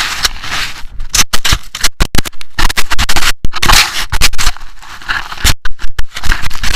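Loud, irregular scraping and knocking of snow directly against an action camera's housing and microphone as the camera, broken off its mount, tumbles loose in the snow and is handled.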